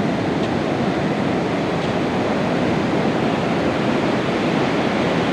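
Pacific Ocean surf washing up on a sandy beach: a steady rushing of waves with no breaks.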